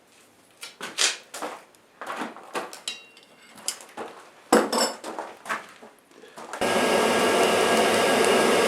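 Light metal clinks, knocks and scrapes of tools and steel being handled, then about six and a half seconds in a motor-driven blower starts with a sudden steady rush and hum.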